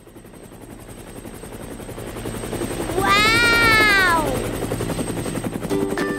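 Cartoon helicopter rotor chopping, fading in and growing steadily louder as it flies in. About three seconds in, a short high-pitched sound effect rises and then falls in pitch, and light music notes come in near the end.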